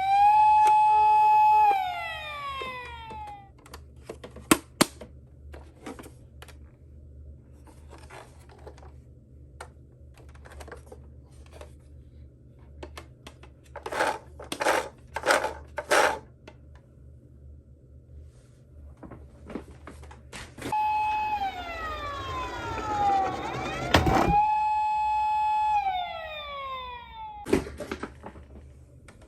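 Electronic siren of a toy emergency-vehicle minicar sounding twice, a tone that slides down, holds steady, then slides down again. Between and during the sirens come plastic clicks and knocks of the toy cars being handled, with a cluster of clicks in the middle and a sharp knock during the second siren.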